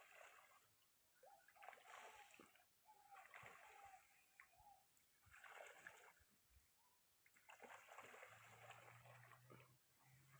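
Ducks bathing in a pond, splashing the water in about five separate bouts with short lulls between them.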